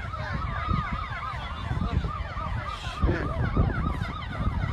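Several emergency sirens sounding at once, their fast rising-and-falling wails overlapping, over a low rumbling noise.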